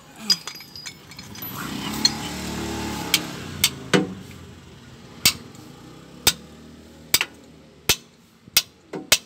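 Hammer striking the end of a steel combination wrench set on a seized transmission plug, about a dozen sharp metallic blows roughly once a second, to shock the plug loose. A low rumble swells and fades between about two and four seconds in.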